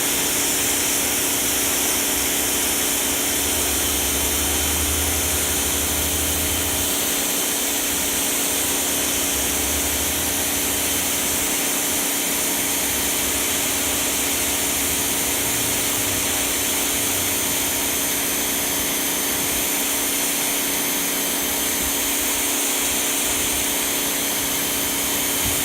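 Electric pressure washer running steadily, its motor whining under a strong hiss of the water jet spraying onto concrete driveway.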